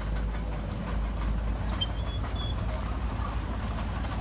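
Komatsu bulldozer's diesel engine running steadily under a low rumble, with a rapid clatter like crawler tracks working. A few short high chirps sound about halfway through.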